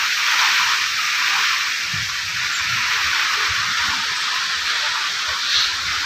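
Steady hiss of light rain falling on trees and bushes, with faint low thumps in the middle and a brief higher sound near the end.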